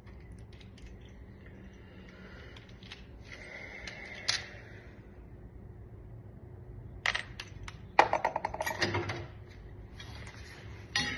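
Metal clicks and rattles of door lock hardware being handled: a single sharp click about four seconds in, then a quick run of clinks and rattles about seven to nine seconds in.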